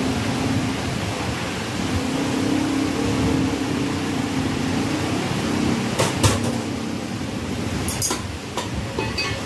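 Steady machine-like background drone with a low wavering hum, broken by a few sharp knocks, a pair about six seconds in and more near the end, from a butcher's knife working through mutton against bone and a wooden chopping block.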